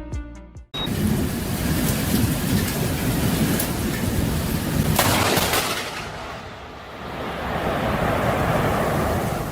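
The rushing roar of a storm cuts in suddenly under a second in, dips briefly about six seconds in, then swells again.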